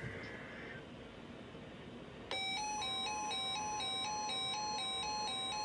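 Emergency alert attention tone for a tornado watch: after a buzzy data-like tone fades out in the first second and a short gap, an electronic alarm starts about two seconds in, stepping rapidly back and forth between two pitches, with a steady single tone joining it shortly after.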